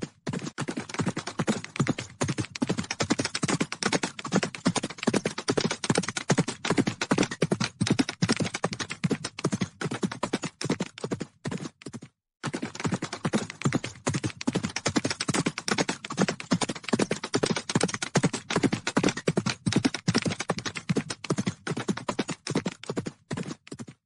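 Hoofbeats of a herd of horses galloping: a dense, continuous drumming of many hooves, breaking off briefly about halfway through.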